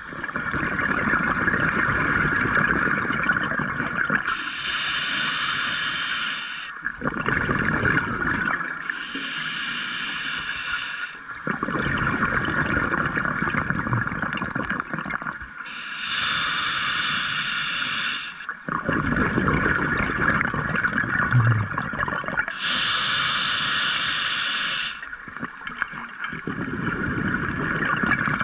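Scuba diver breathing underwater through a regulator: a hissing inhale of a couple of seconds, then a longer bubbling exhale, four breaths in a slow, even rhythm. A steady mid-pitched hum runs underneath.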